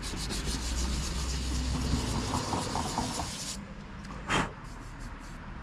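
Sandpaper rubbed by hand over cured Bondo body filler on a car's header panel, rapid rasping strokes that stop abruptly about three and a half seconds in. A low rumble underlies the first two seconds, and a brief short sound comes near the end.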